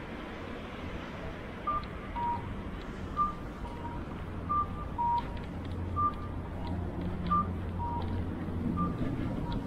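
Electronic two-tone signal beeping, a short higher note followed by a lower one, the pair repeating about every second and a half, over a steady low traffic rumble.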